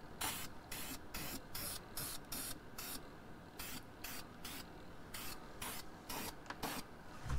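Aerosol can of Dupli-Color primer hissing in short repeated spurts, about two to three a second, with a couple of brief pauses.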